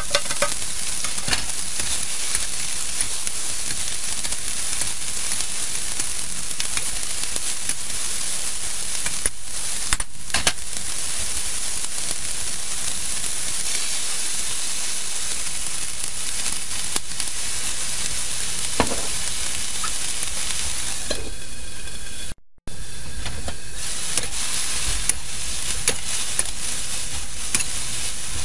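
Bean sprouts sizzling steadily as they are stir-fried in a hot steel wok, with the metal wok spatula scraping and clinking against the pan now and then. The sizzle cuts out for a moment about three-quarters of the way through.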